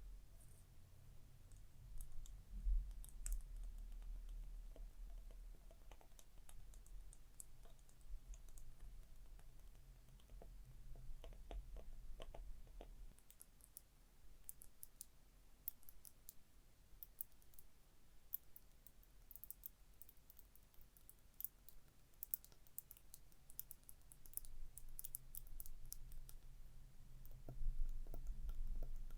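Gentle tapping and scratching on a small object close to the microphone: scattered light clicks, then a dense run of quick, sharp ticks through the second half.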